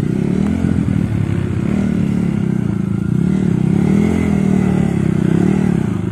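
Dirt bike engine revving up and down in a series of short rises and falls, under load as the bike is worked up a steep rock slab.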